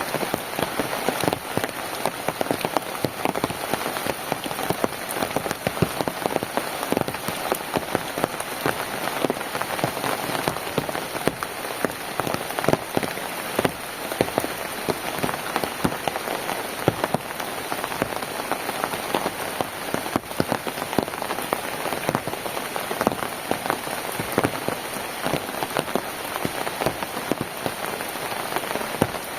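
Steady rain falling on a surface, an even wash of noise with many separate drop hits ticking through it.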